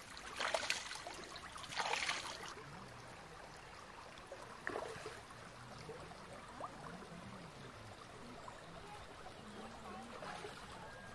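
Hands splashing and rinsing in a shallow, trickling stream for the first two seconds or so. Then the splashing stops and only a faint, even outdoor background remains.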